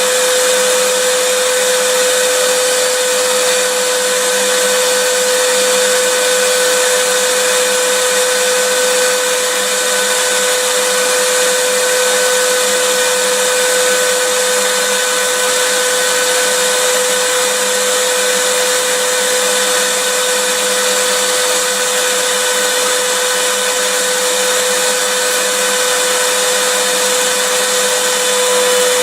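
Vacuum cleaner running steadily: an even hiss of rushing air with a constant motor whine, unchanging throughout.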